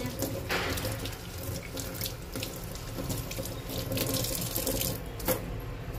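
Kitchen tap running in a steady stream over a bunch of fresh coriander as the hands rinse it, the water splashing into a stainless steel sink. A single sharp knock sounds about five seconds in.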